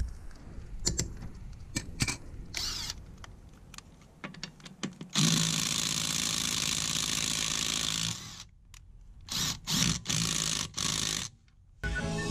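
Parkside PDSSA 20-Li A1 cordless impact driver hammering on a car wheel nut through a socket, in one run of about three seconds and then several short bursts. Before it come clicks and knocks of the tools being handled.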